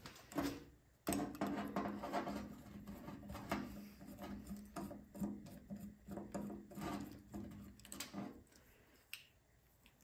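Small metal parts and a hand tool clicking and scraping as a small-engine carburetor is taken apart. A steady low hum starts abruptly about a second in and stops near the end.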